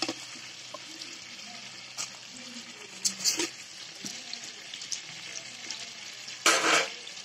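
Whole spices, bay leaves among them, sizzling in hot oil and butter in a cooking pot. There is a steady hiss with scattered sharp crackles and a few louder bursts of sizzle, the loudest near the end.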